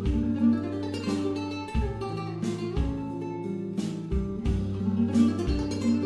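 Background music: acoustic guitar playing plucked and strummed notes over low sustained bass notes that change about once a second.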